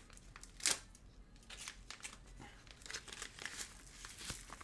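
Yellow paper envelope crinkling and rustling as hands open it and slide a part out, in short irregular crackles, the loudest about two-thirds of a second in.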